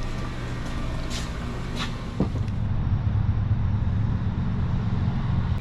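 A steady low engine drone, louder from about two seconds in, with a few light clicks before that.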